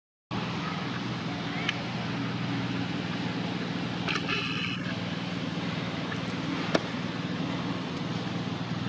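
Steady low mechanical hum with a noisy background, joined about four seconds in by a short high-pitched call. A sharp click comes near seven seconds.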